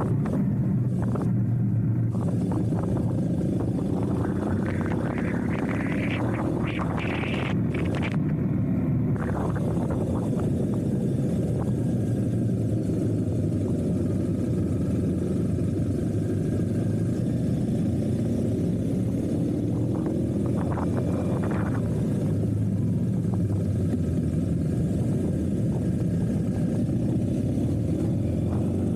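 Motorcycle running steadily at road speed, its engine a continuous low drone. A rushing noise swells between about four and eight seconds in.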